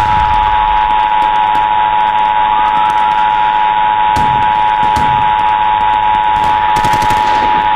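Emergency Alert System two-tone attention signal (853 and 960 Hz together) held steady for about eight seconds. Underneath, scattered gunshots and a wailing police siren.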